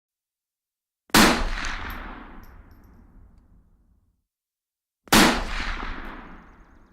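Two rifle shots about four seconds apart, each with a sharp crack and a long rolling echo that fades away over about three seconds.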